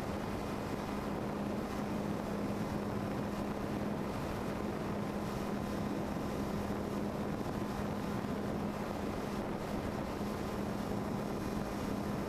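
Electric motor and propeller of a small RC plane (Mini Skywalker) droning at one steady pitch, over a constant rush of noise, as picked up by the plane's onboard camera in flight.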